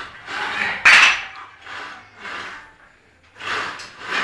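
Clinks and knocks of a loaded barbell and its plates during bench press reps, in a string of short bursts with a sharp louder one about a second in.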